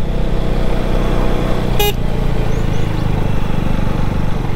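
KTM Duke 250's single-cylinder engine running steadily at a low road speed, heard from the rider's seat, with one short horn beep about two seconds in.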